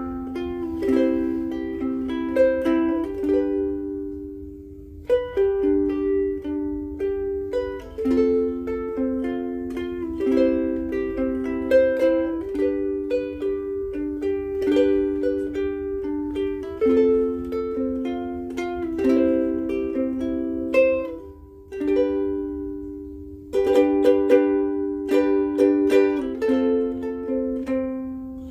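Martin S1K solid koa soprano ukulele with Martin M600 strings, played solo with plucked notes and chords. The notes ring out and die away briefly twice before the playing picks up again.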